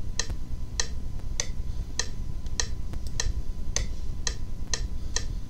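FL Studio 8 software metronome ticking steadily at 100 beats per minute, a little under two sharp ticks a second.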